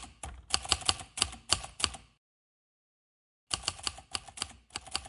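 Typewriter keystroke sound effect: two runs of quick, irregular clacks with a gap of about a second and a half of silence between them, as coordinates are typed out on screen.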